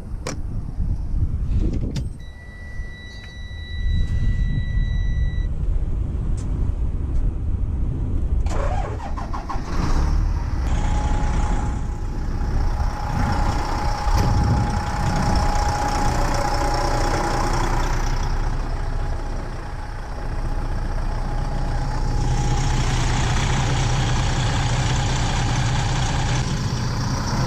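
Semi truck's diesel engine started up and running, with a steady electronic warning buzzer sounding for about three seconds near the start. A steady whine comes in over the engine for about ten seconds in the middle. The engine is running to check whether the AC compressor clutch engages with its pressure switch bypassed.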